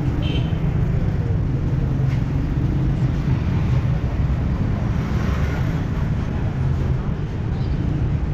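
Street traffic noise: a steady low engine hum from nearby motor vehicles over a general din of the road.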